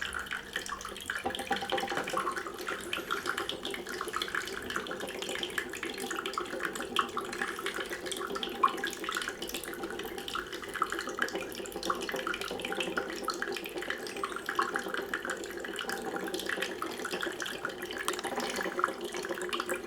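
Small decorative water fountain running: pumped water steadily trickling and splashing down over its stones.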